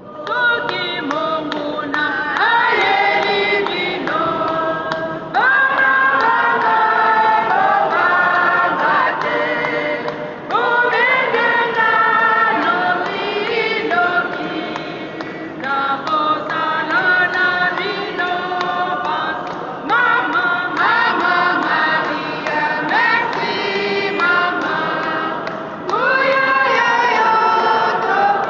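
Choir singing, in phrases that each begin strongly about every five seconds.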